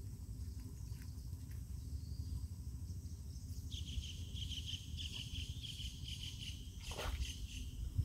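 Steady low outdoor rumble, with a high, rapid chirping call from a small creature starting about four seconds in and lasting about three seconds. A short swish sweeps down near the end.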